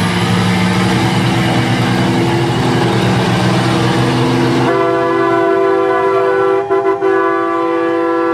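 A truck's air horn blowing one long, steady, loud blast of several tones at once. About halfway through it shifts to a higher chord and holds until it cuts off.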